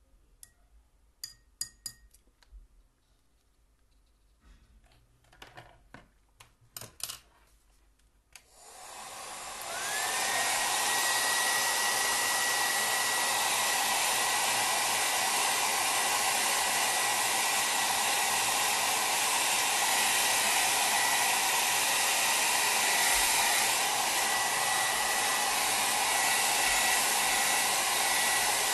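A few light clicks, then about eight seconds in a hair dryer switches on and runs steadily, a loud rush of air with a steady high whine. It is blowing over a wet watercolour painting to dry the paint.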